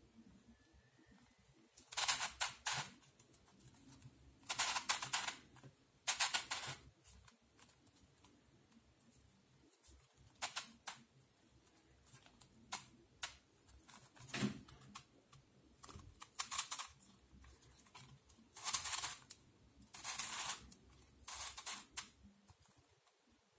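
Plastic twisty puzzle cube turned by hand: short bursts of clicking and rattling as its layers are twisted, about a dozen turns with pauses between them.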